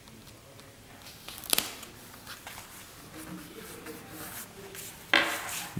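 A paper sticker being pressed onto a glossy album page: a sharp crinkle of paper about a second and a half in, then soft rustling and rubbing as fingers smooth it flat. A short burst of voice comes near the end.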